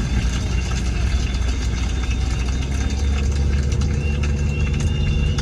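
Car engine running, a steady low hum with a faint even hiss over it.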